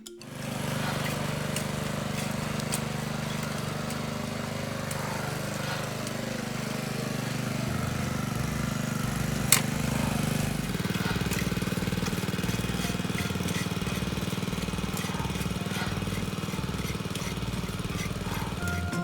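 Small engine-driven farm machine running steadily, with a single sharp click about halfway through.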